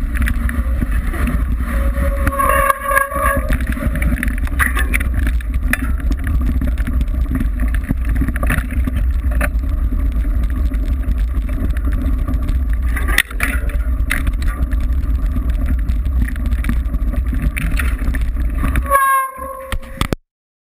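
Wind buffeting the microphone and the rattle and knocking of a mountain bike and its mounted camera on a fast descent over a rough dirt trail. A brief higher tone sounds about two to three seconds in. The sound cuts off abruptly just before the end.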